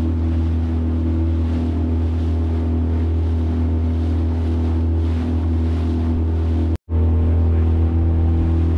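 Small outboard motor running at a steady cruising speed, pushing an aluminium tinny along, with water splashing and spraying against the hull. The sound drops out for an instant about seven seconds in.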